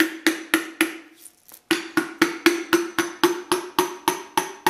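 Soft mallet tapping a piston down through a ring compressor into the cylinder bore: quick, even taps about four a second, each with a short ring, with a brief pause about a second in.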